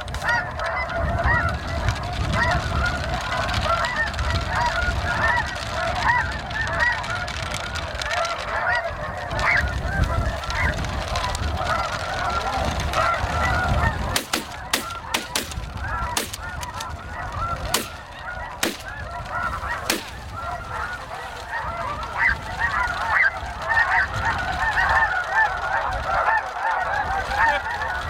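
A dense chorus of snow geese calling, many overlapping short honks and yelps. A low rumble runs under the first half, and several sharp clicks come about halfway through.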